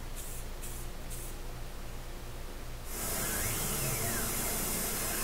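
Short spurts of aerosol spray paint hissing about twice a second at the start. About three seconds in, a steady high hiss takes over: a Tormach PCNC 1100 CNC mill facing an aluminium plate with a Superfly fly cutter at 2500 RPM.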